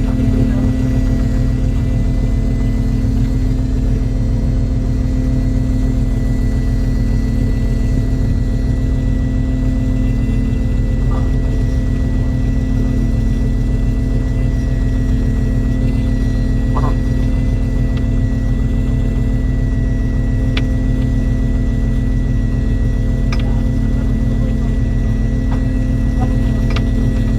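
Fishing boat's engine running steadily: a loud, even, low drone with a constant hum through it, and a few faint ticks.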